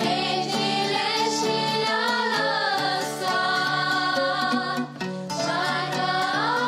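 A choir of girls and women singing a folk song, accompanied by violin, cobza and nai (pan flute). The singing comes in sharply at the start and breaks briefly about five seconds in before carrying on.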